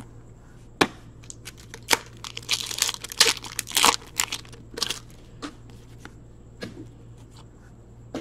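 A hockey card pack's foil wrapper torn open and crinkled by hand, the crinkling densest in the middle, with a few sharp clicks of the cards being handled.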